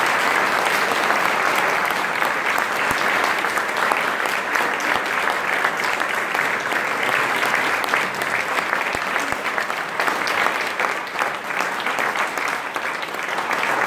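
A large crowd applauding steadily, many hands clapping at once, greeting the end of a speech.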